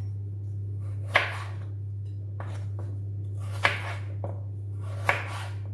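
A kitchen knife cutting carrots on a cutting board: three sharp knocks of the blade reaching the board, with a few fainter cuts between, over a steady low hum.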